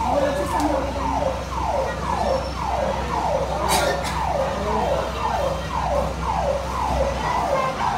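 Fire truck siren sounding a fast, repeating wail, each sweep falling in pitch and jumping back up, about two a second, over a steady low rumble.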